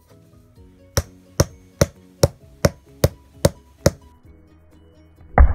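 Something heavy hammering the spine of a scalloped utility knife down into a bath bomb's seam: eight sharp taps a little under half a second apart, then a louder thump near the end, with quiet background music underneath.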